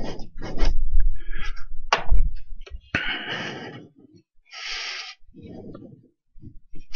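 Breaths and soft hisses into a close microphone, with low bumps and a few small clicks.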